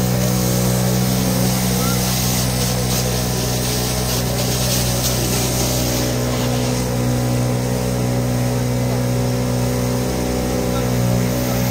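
Fire pump engine running steadily at constant speed, driving water through the hose, with the hiss of the water jet from the nozzle.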